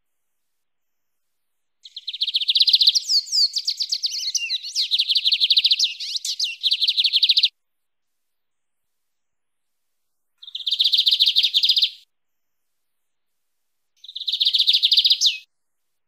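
Male lined seedeater (bigodinho) singing its wild-type 'mateiro' song: a long phrase of fast, high, buzzy repeated notes lasting about six seconds, then two short phrases, with complete silence between them.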